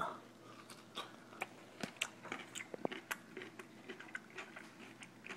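A crisp homemade dill pickle being bitten into and chewed, giving an irregular run of crunches, two or three a second.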